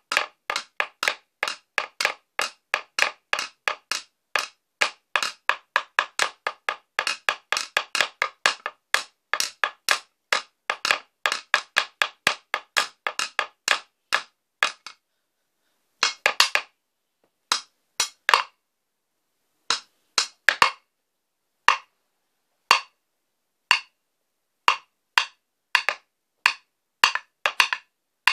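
A wooden stool top played as a drum: sharp, dry wooden strikes, quick and dense at about four or five a second, stopping for about a second halfway through, then sparser and uneven in small clusters.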